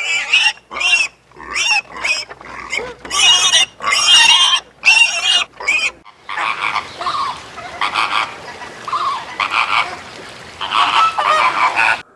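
Animal calls: a series of about ten short, pitched calls with gaps between them, then from about six seconds a denser run of calls over a steady hiss.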